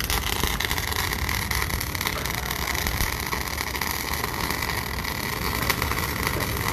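MIG welder arc crackling steadily while a bead is laid to join a 50 mm shaft.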